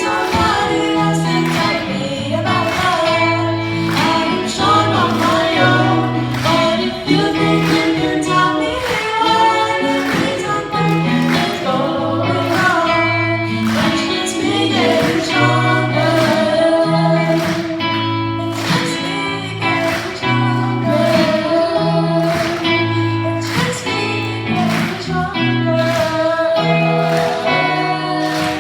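Music with singing over a steady beat and a repeating bass line.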